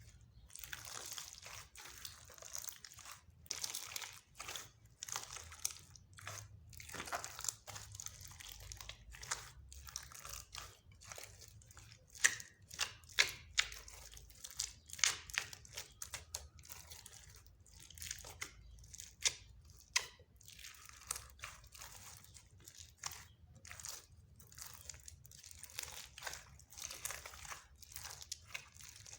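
Slime being mixed and kneaded by hand, making irregular sticky clicks and crackles, with a run of louder pops around the middle.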